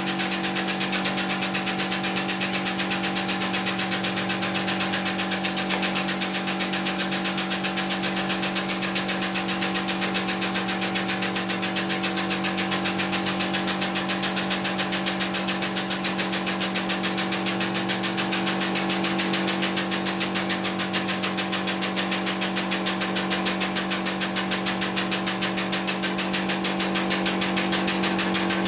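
Power unit of a 50-ton hydraulic press running steadily as the ram slowly presses down under load. It is an even hum with a hissing whine on top and a fast, regular pulsing throughout.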